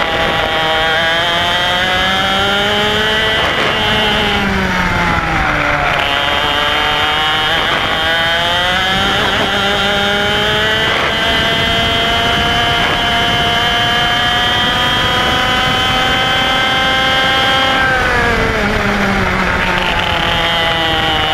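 IAME X30 125cc two-stroke kart engine at racing speed, its revs climbing along the straights and falling off into the corners: a drop about four seconds in, a long steady climb, then a sharp fall near the end before it picks up again.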